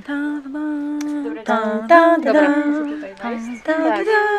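A woman singing a slow melody in long held notes.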